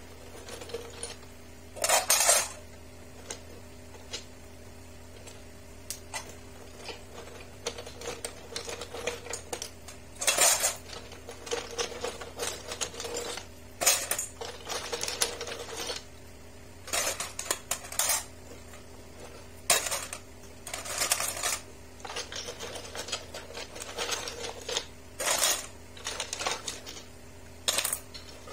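Chunks of karang jahe coral rubble filter media being picked by hand out of a glass top-filter chamber, clattering against each other and the glass in repeated bursts. A steady low hum runs underneath.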